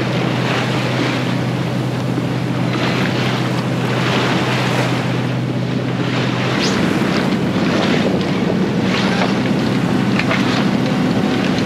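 Wind buffeting the microphone and waves sloshing around a sailboat in choppy seas, swelling and easing about once a second. Under them runs a low steady drone that steps up in pitch about halfway through, with a few faint clicks.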